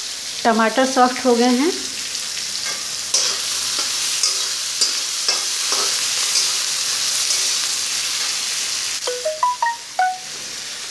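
Chopped tomatoes and onions sizzling in mustard oil in a steel kadhai, with a steel spatula clicking and scraping against the pan as they are stirred. A brief voice-like sound comes about half a second in, and a few short high tones come near the end.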